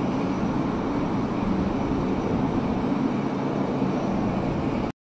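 Steady aircraft engine noise that cuts off abruptly near the end.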